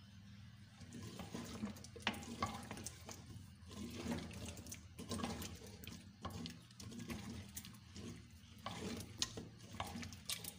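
Wooden spoon stirring cubed potatoes through wet tomato masala in a clay pot: irregular scrapes and soft knocks against the pot, mixing the potatoes into the fried masala.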